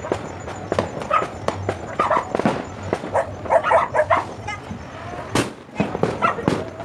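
Firecrackers popping in irregular succession, with one louder bang about two-thirds of the way through. A dog barks repeatedly through the middle.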